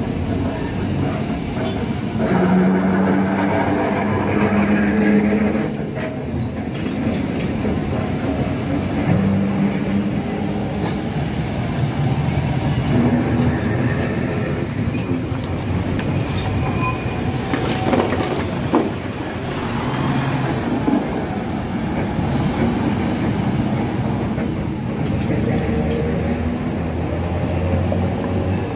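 Vintage electric trams rolling past on street track, their steel wheels running on the rails, mixed with city traffic. A car drives by close near the end.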